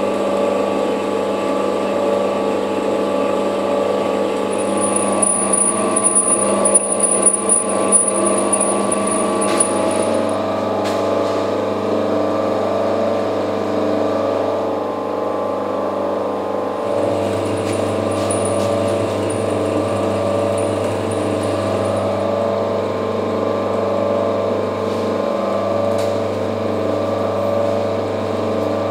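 Optimum TU 2404 benchtop metal lathe, converted to CNC with stepper motors, running steadily and cutting a small metal bar, with a whirring hum. A thin high whine comes in twice, for about six and then about four seconds.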